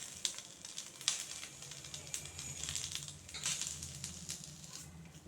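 An Indian borage (doddapatre) leaf sizzling and crackling softly on a hot iron dosa tawa as it wilts, with a few sharp ticks.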